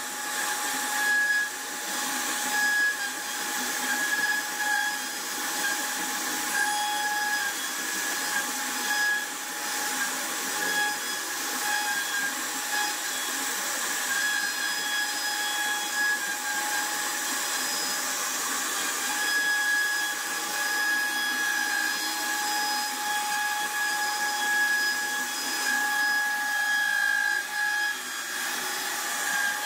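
CNC router spindle running with a steady high whine while its carving bit cuts into a wooden panel, the cutting noise swelling and easing as the bit moves through the wood.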